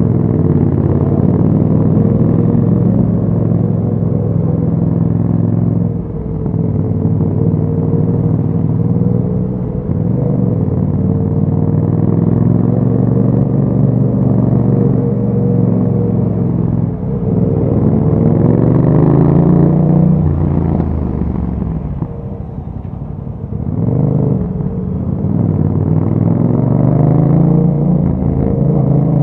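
2021 Yamaha MT-07's 689 cc parallel-twin engine through an Akrapovic exhaust while riding, holding steady revs for stretches with brief throttle dips several times. The pitch climbs steadily under acceleration in the middle and again near the end.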